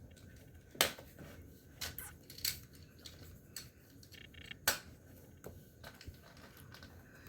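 Scattered sharp clicks and taps of small plastic fidget toys being handled and set down, the two loudest about a second in and near five seconds in.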